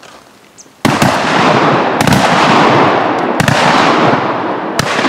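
Hunting shotguns fired in a volley of several shots, about one a second, each followed by a long echo.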